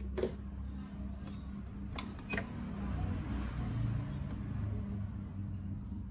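Clear plastic display box being handled: a few sharp clicks and taps, the loudest about two seconds in, with faint squeaks, over a steady low hum.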